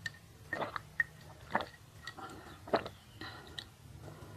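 A person drinking water from a glass mug, with a series of short gulping swallows about every half second, close to the microphone.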